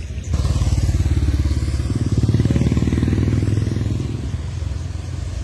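Motorcycle engine passing close, its exhaust pulsing steadily, loudest about two seconds in and easing off toward the end.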